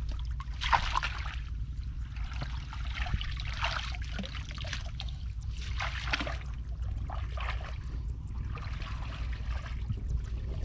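Shallow water splashing and trickling in short swells, about one every second or so, as it is stirred and poured. A steady low hum runs underneath.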